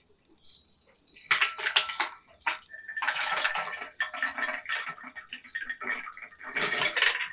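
Raw almonds poured from a glass bowl into a plastic strainer basket, rattling down in several pours of many small hits, with a light ring from the glass bowl.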